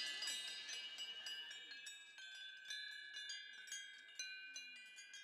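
Chimes tinkling, many light strikes over a high ring, fading away as the tail of the closing music.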